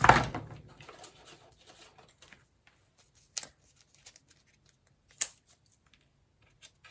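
Craft clips being handled and clipped onto a freshly glued page to hold it, with a short rustle of paper at first and then a few separate sharp clicks.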